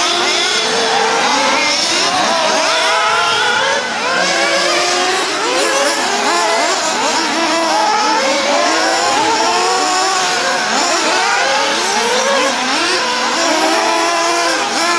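A field of 1:8-scale nitro off-road RC buggies racing, their small two-stroke glow-fuel engines revving up and down. Many engine notes rise and fall over one another without a break as the cars accelerate and brake around the track.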